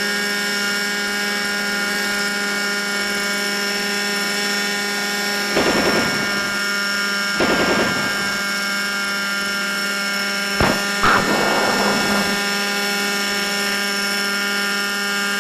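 Thunder Tiger Raptor 60 RC helicopter's nitro glow engine and rotors running with a steady whine. About five and a half seconds in and again about two seconds later come two short bursts of rapid machine-gun fire, then a sharp bang about ten and a half seconds in followed by a rush lasting about a second, like a rocket hitting its target.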